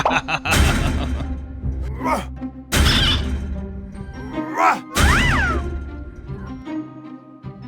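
Three heavy crashing blows, about two seconds apart, from a door being smashed in, over background music; a short rising-and-falling tone follows the third blow.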